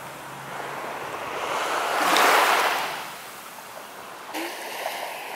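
Small sea waves washing onto a sandy shore, with one swell of surf noise rising and fading about two seconds in.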